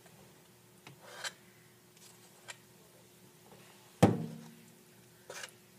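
Muffin batter being scraped from a stainless steel mixing bowl into a metal muffin tin: a few short, soft scrapes, then one sharp metallic clank about four seconds in that rings briefly, followed by two more scrapes near the end.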